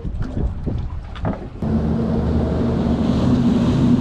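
A motorboat passing very close: its engine comes in suddenly about a second and a half in and keeps running as a loud, steady low drone. Before it there are a few light knocks.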